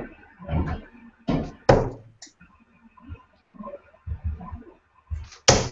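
Steel-tip darts hitting a Unicorn Eclipse HD bristle dartboard: several short thuds, the sharpest and loudest near the end.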